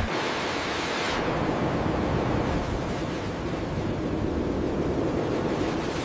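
Steady rushing water noise, hissier for about the first second and then a duller, even rush.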